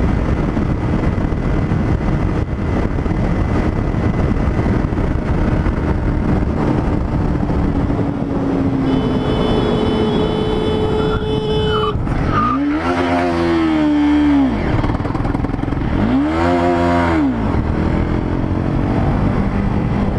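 Sport motorcycle ridden at road speed: the engine runs under a steady rush of wind over the helmet-mounted microphone. The sound swells briefly twice in the second half.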